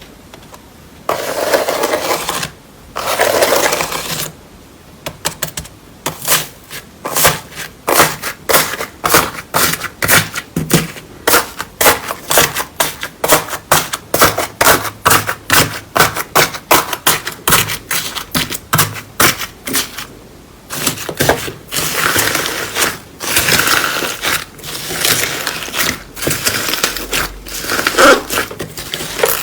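Slime being squished and pressed by hand, with wet squelching at first and then a long run of sharp popping clicks, about three a second, as air pockets in the slime burst; more squelching with pops near the end.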